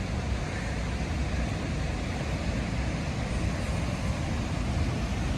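Steady rushing roar of a large waterfall, deep and even, growing slightly louder.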